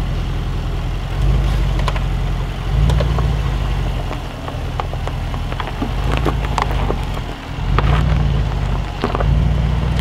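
Range Rover Sport's engine pulling in low range as it crawls over rocks, its low drone rising and falling in several swells. Stones and gravel crack and crunch under the tyres in short sharp ticks.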